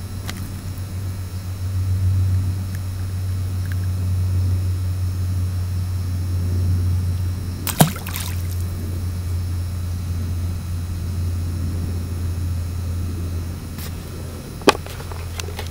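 A steady low drone runs throughout. About eight seconds in, the water splashes sharply at a fishing bobber, and a single sharp click comes near the end.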